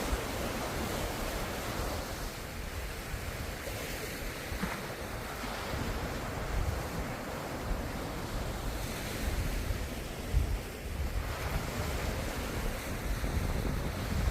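Ocean surf: a continuous wash of waves, swelling and easing, with a low rumble of wind on the microphone.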